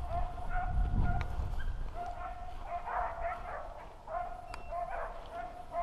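Beagles baying while running a rabbit on scent: repeated drawn-out hound cries, several overlapping in the middle. A low rumble on the microphone about a second in.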